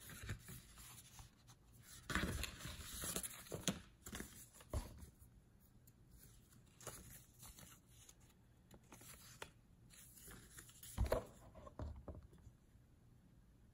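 Paper rustling and crinkling as a receipt and a paper shopping bag are handled, in scattered short bursts with quiet gaps. The busiest handling comes about two to four seconds in and again about eleven seconds in.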